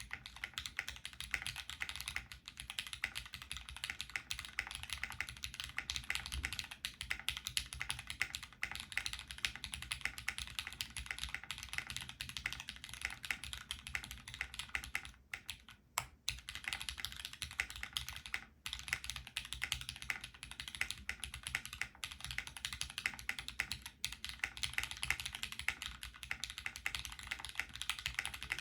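Continuous typing on a dnworks.co V mechanical keyboard with lubed Cherry MX Black Hyperglide linear switches, an aluminium plate, Poron gasket mount and GMK keycaps: a dense stream of keystroke clacks, with a couple of brief pauses about halfway through.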